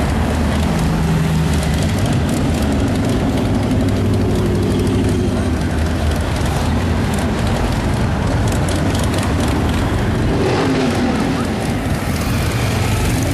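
Supercharged hot rod engine idling with a steady low note, shifting briefly about ten seconds in.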